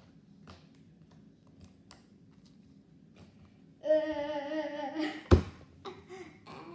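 Faint sticky clicks of fluffy slime being kneaded by hand. About four seconds in, a girl's voice hums a wavering, wobbling note for just over a second. It ends in one sharp slap, followed by a few short vocal sounds.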